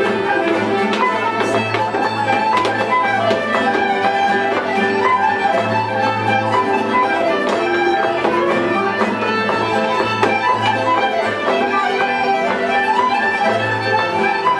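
Live Irish traditional dance tune, with a fiddle prominent and a continuous melody. The sean-nós dancer's steps tap sharply on the wooden floor throughout.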